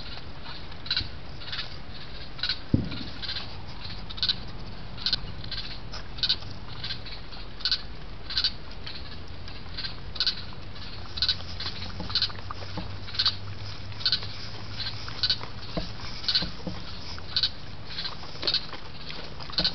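Raccoon crunching food from a bowl close to the trail camera's microphone: short crisp crunches about once a second. About three seconds in there is a single sharp thump as the raccoon bumps the camera.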